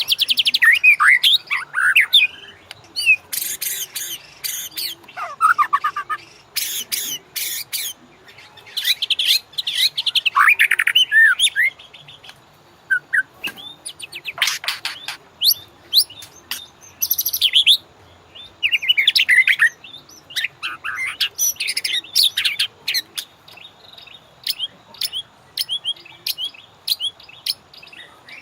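White-rumped shama (murai batu) singing: a varied run of short whistled phrases that sweep up and down, broken several times by bursts of rapid, harsh rattling clicks.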